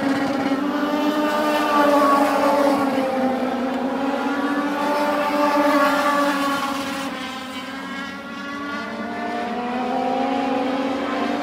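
Legends race cars' motorcycle-derived engines running at racing speed around the oval, several at once, their pitch rising and falling as the cars pass and accelerate. The sound eases about eight seconds in as the pack moves away, then builds again.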